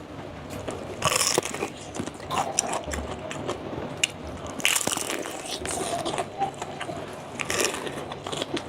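Close-miked biting and chewing of crunchy food: a string of loud crunches every second or two, with smaller mouth clicks in between.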